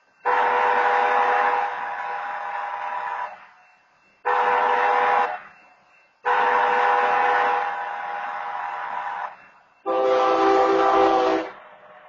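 Locomotive multi-chime air horn sounding at a grade crossing: a long blast, a short one and another long one, then a final blast about ten seconds in with a lower, different chord.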